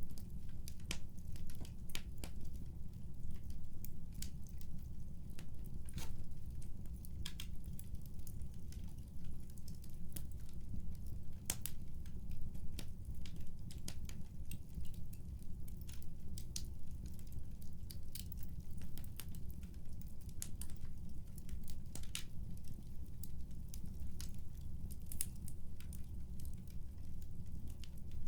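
Fireplace fire crackling: irregular sharp snaps and pops over a steady low rumble.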